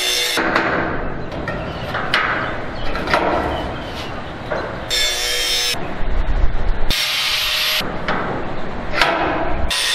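Angle grinder cutting steel pipe in short high-pitched bursts of about a second each: one stops just after the start, others come about five and seven seconds in and another near the end. Between the bursts there is irregular metal scraping and rubbing.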